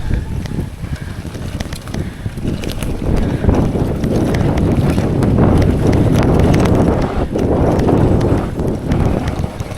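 Mountain bike riding down a wet, slippery trail: wind buffeting the microphone over the rumble of the tyres and the rattle and knocks of the bike, building to its loudest in the middle before easing off near the end.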